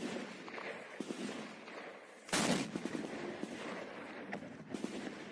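Carl Gustaf M3 84 mm recoilless rifle firing once, a little over two seconds in: a single sharp blast that dies away within about a second.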